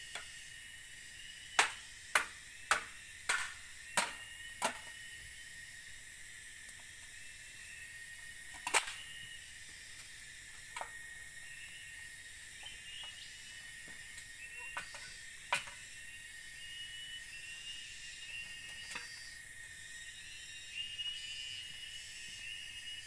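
Machete (golok) chopping into a bamboo stem: six sharp strokes about half a second apart, then a few more single blows spread out. A steady high drone of forest insects runs underneath.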